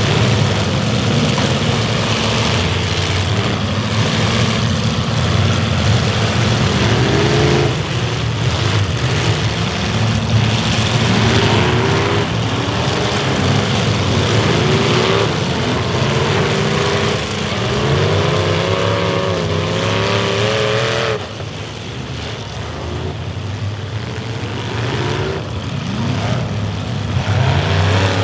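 Several demolition derby cars' engines revving hard together, their pitch rising and falling, with the knocks of cars ramming one another. The engines drop off suddenly about three-quarters of the way through, then build up again near the end.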